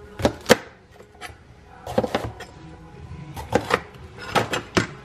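Chef's knife slicing a red bell pepper on a cutting board: the blade knocks on the board, mostly in quick pairs of cuts, about eight in all.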